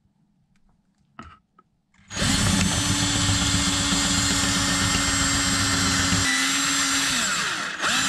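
Power drill running steadily for about five seconds with its bit pressed into a metal rivet head, then winding down, with a short burst of drilling again near the end. The rivet is not giving way yet, which the driller puts down to not pushing hard enough.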